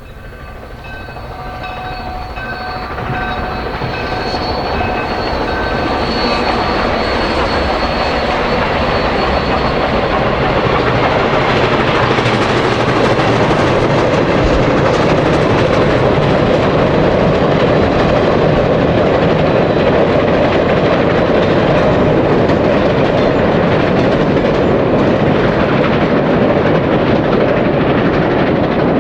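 Canadian Pacific 2816 steam locomotive and its train approaching, growing louder over about ten seconds. It then passes with a steady, loud rumble and clatter of wheels on the rails.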